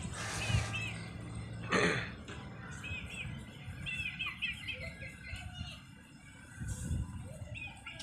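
Young chickens peeping: short, arched chirps in small clusters, with a brief rustling burst just under two seconds in.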